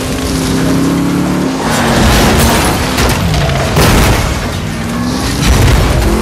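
Film action soundtrack: repeated explosion booms and crashing impacts over a sports car's engine revving up and down.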